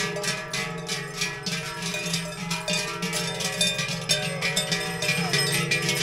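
Cowbells on the herd clanging in a steady rhythm, their ringing tones held from stroke to stroke, together with plucked-string music.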